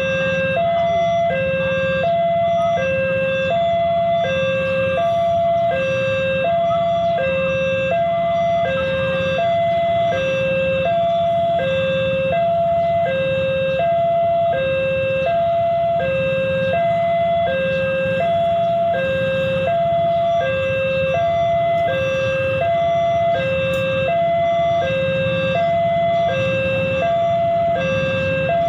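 Railroad level-crossing warning alarm sounding from the loudspeaker on the signal post: an electronic two-tone chime alternating steadily between a higher and a lower note, about one pair a second, warning that a train is coming. A low rumble of waiting motorcycle and truck engines runs underneath.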